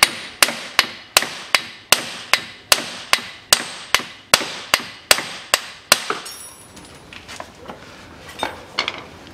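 Hammer blows on the splined end of a CFMOTO CF500A ATV's front CV axle, driving it out of the hub bearing it has seized in. There are about sixteen sharp metal strikes, roughly two and a half a second. They stop about six seconds in as the hub comes free, and a few lighter clinks of handling follow.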